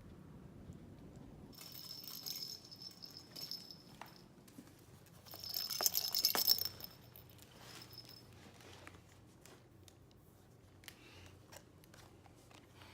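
Small metallic jingling, like a little bell or metal tags shaken, in two bursts: one about a second and a half in and a louder one about five and a half seconds in. Faint clicks and rustling follow.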